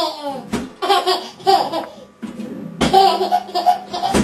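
High-pitched laughter in short repeated bursts, with a brief break about two seconds in.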